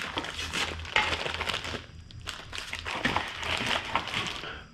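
Plastic kit-part bags crinkling and rustling in irregular bursts as they are handled and moved around.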